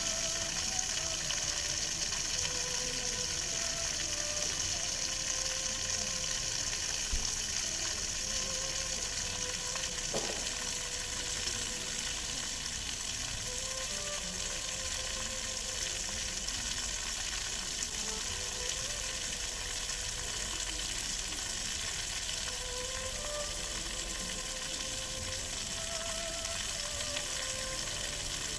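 Fountain water jets spraying and splashing steadily onto wet paving and the pool, a continuous even hiss.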